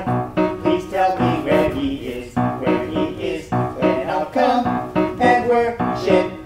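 Piano music playing a quick run of separate notes.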